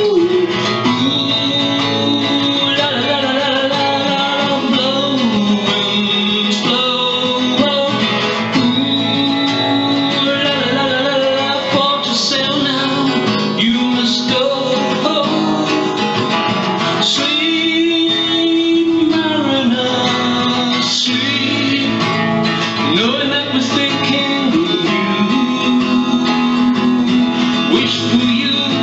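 Acoustic guitar strummed steadily, with a harmonica in a neck rack playing long held notes over it as an instrumental break in a folk song.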